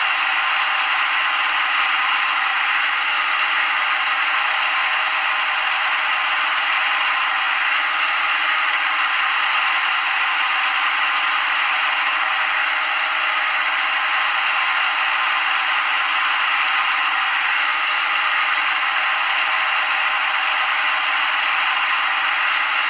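Simulated CNC lathe machining sound from a lathe simulator program as it runs a G75 grooving cycle: a steady, even hiss with a few steady tones in it.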